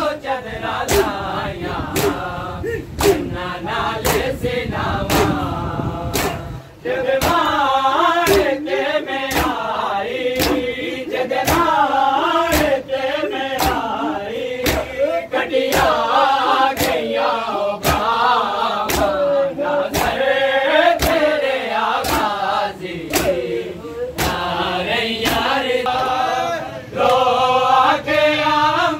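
A group of men chanting a mourning noha together, kept in time by sharp rhythmic slaps of hands on chests (matam), about one and a half strokes a second.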